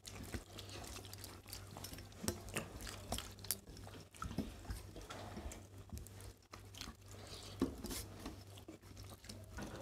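Quiet eating by hand: fingers mixing rice and curry on steel thali plates and mouths chewing, heard as scattered faint clicks and wet smacks over a low steady hum.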